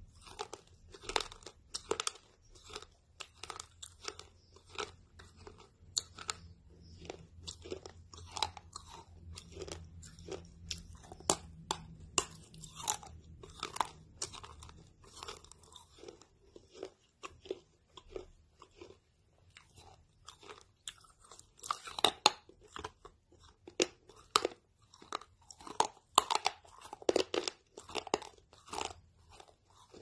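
A person chewing and biting a crunchy snack, with many sharp crunches in quick succession that are loudest in the last third.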